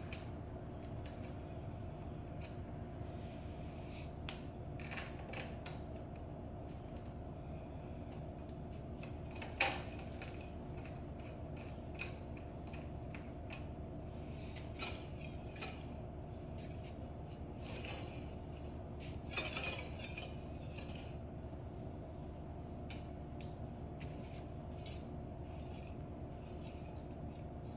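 Hand tools and small metal parts clinking and tapping now and then as they are handled, the sharpest clink about ten seconds in and a few more together near twenty seconds, over a steady hum.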